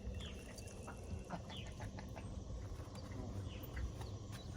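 Scattered short bird chirps over a low outdoor rumble, with a faint steady low hum and a few light clicks.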